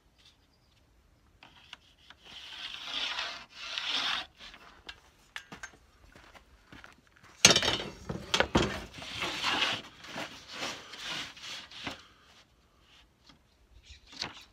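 Thin plywood boards rubbing and sliding against each other and the workbench, with a sharp wooden knock about seven and a half seconds in followed by more scraping.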